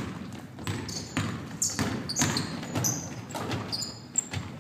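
Basketball play on a hardwood gym floor: sneakers squeaking in short high chirps, running footfalls and the ball bouncing.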